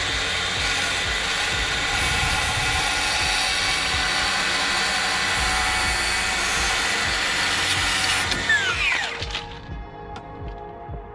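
Handheld power saw spinning up, cutting a wooden paneling strip for about eight seconds, then winding down.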